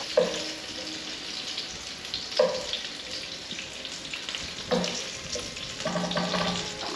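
Sausages and bacon grease sizzling steadily in a hot frying pan, with a few short knocks of a wooden spatula as the sausages are lifted out onto a plate.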